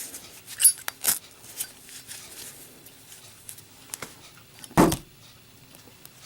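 Zippo lighter handled with a few sharp metallic clicks, then one loud clunk about five seconds in as it is dropped and lands in a drop test.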